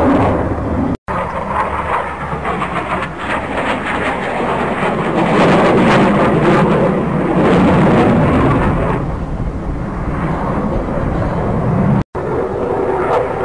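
Jet aircraft flying past overhead, its engine noise a loud continuous rush that swells to its loudest in the middle and eases a little near the end. The sound drops out for an instant about a second in and again near the end.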